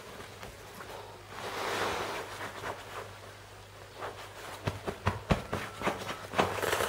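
Close rustling of fabric and handling noise, with a swell of rustle about a second and a half in and a quick series of sharp knocks and clicks in the last two seconds, over a low steady hum.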